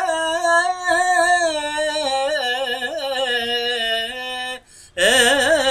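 A man singing a ghazal without words in the line, holding and bending long, ornamented notes. The voice breaks off for a breath about four and a half seconds in, then comes back strongly with a wavering pitch.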